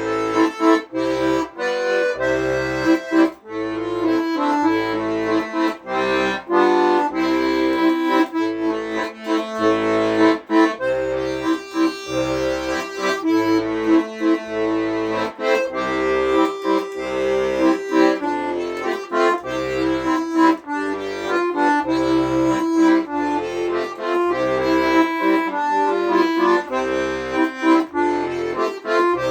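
A solo instrumental piece: a melody of held and moving notes over a regular bass line of short repeated low notes.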